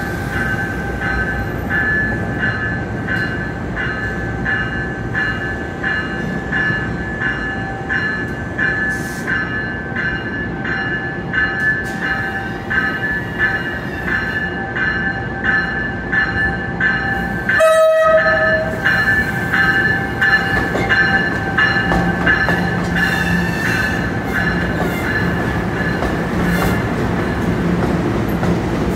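NJ Transit train departing, its bell ringing steadily about twice a second. There is a short horn sound about two-thirds of the way through, then the rumble and low hum of the Bombardier Multilevel cars rolling past close by.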